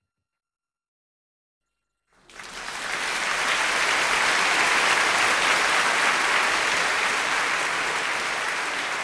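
Audience applause that comes in after about two seconds of silence, builds quickly to a dense, steady clapping and then slowly fades.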